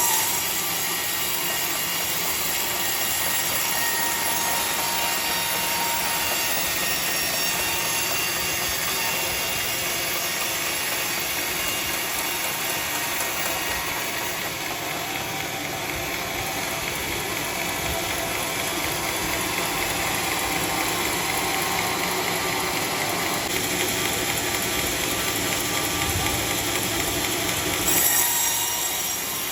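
Sawmill saw running through teak timber: a steady mechanical noise, with a short louder swell near the end.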